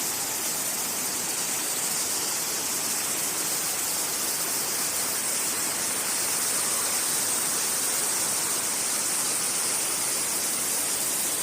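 Waterfall rushing, a steady, unbroken hiss of falling water.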